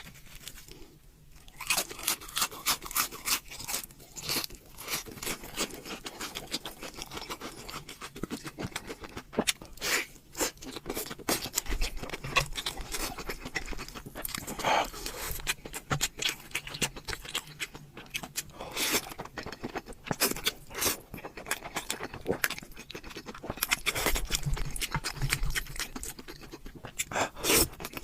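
Close-miked eating: crunchy fried chicken coating being bitten and chewed, with many sharp crackles, mixed with softer wet chewing.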